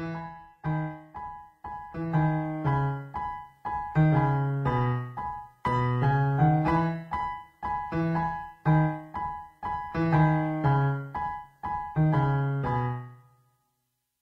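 Background music: a piano-like keyboard playing short, detached notes and chords in a bouncy rhythm, stopping about a second before the end.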